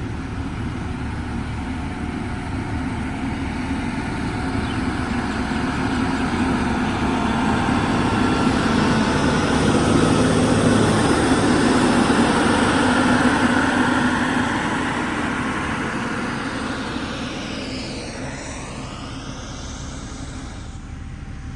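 Diesel engine of a heavy road-construction machine running under load, growing louder to a peak about halfway through and then fading as it moves past.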